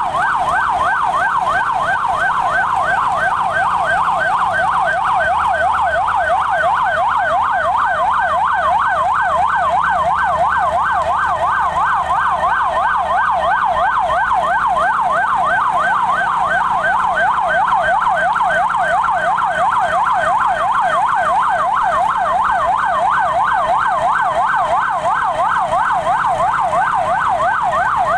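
Emergency vehicle siren wailing continuously in a fast up-and-down yelp, about three sweeps a second, at a steady loudness.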